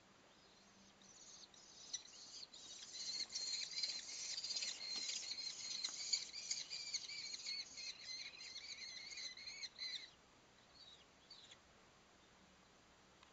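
Kestrel chicks giving rapid, high-pitched wavering begging calls as a parent arrives at the nest with food. The calling builds up over the first few seconds, stays loud, and stops suddenly about ten seconds in, followed by a couple of faint calls.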